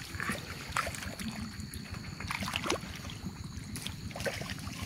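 Hands squelching and sloshing in shallow muddy rice-paddy water while groping for fish, in short scattered splashes over a steady low rumble.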